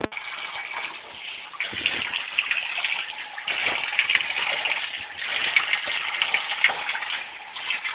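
Water rushing and splashing in uneven surges.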